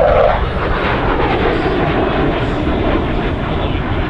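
Douglas A-4 Skyhawk jet flying overhead in a banked turn with its air brakes out, its engine making a loud roar. A higher tone in the roar drops away within the first half second, leaving a steady rushing roar.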